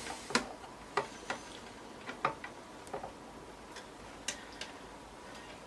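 Sharp, irregular small clicks and ticks from a screwdriver and screws as the motherboard screws are driven back into the metal PC case, about eight in all.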